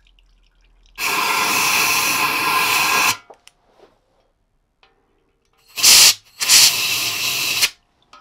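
Compressed-air blow gun blasting air into a motorcycle frame's built-in oil tank to clear out flushing fluid and grit: a loud hiss of about two seconds with a whistling edge, then after a pause a short sharp blast and a second hiss of over a second.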